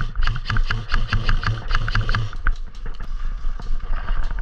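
Footsteps and rustling as a player moves quickly through dry grass and brush. A quick regular clatter, about six a second, runs through the first two and a half seconds, then gives way to looser rustling and knocks.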